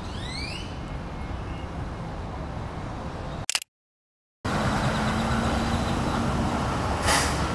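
City street noise with traffic on wet roads, in two short stretches. A sharp click of the Fujifilm X-T4's shutter comes about three and a half seconds in, then the sound cuts to silence for about a second before the street noise returns, louder.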